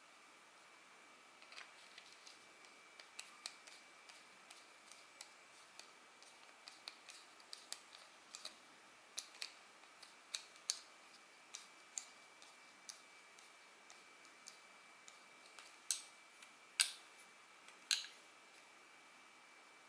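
Sparse, irregular small clicks and taps from a fishing reel and its parts being handled during repair, with a few louder clicks in the last few seconds.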